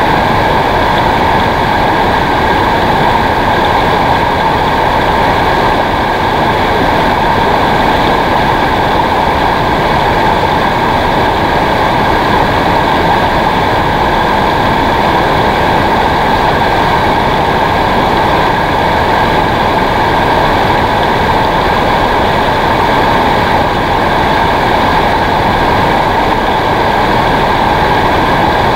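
Shallow river rapids rushing over rocks, a loud steady roar of water.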